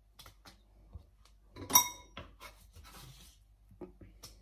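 Cassava root being shaved into thin slices on a hand slicer: soft scraping and rubbing strokes with scattered light clicks, and one ringing metallic clink just under two seconds in.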